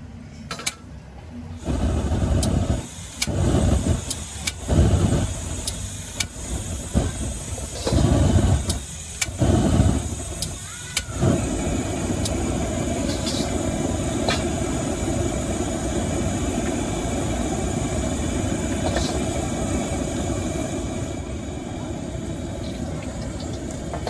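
High-pressure gas wok burner running in surges for about the first ten seconds, then steadily. Sharp metallic clanks, like a spatula striking the wok, come here and there through it.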